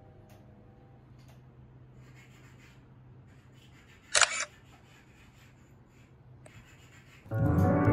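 Camera shutter click, a single short double snap about four seconds in. Piano music starts near the end.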